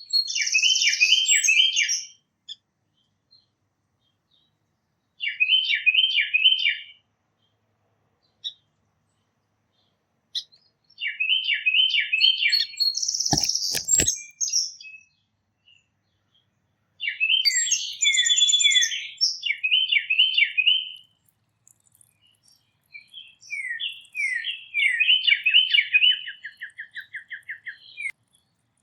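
A songbird singing in separate bouts, each a quick series of repeated down-slurred notes, the last ending in a fast trill. A single sharp knock sounds about halfway through.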